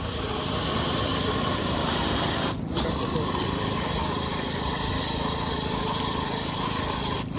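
1/10-scale KingKong RC Lurker model truck's electric drivetrain whining steadily as its oversized tyres churn through thick mud, with a dense grinding, slurping noise under the whine. The sound cuts out very briefly twice.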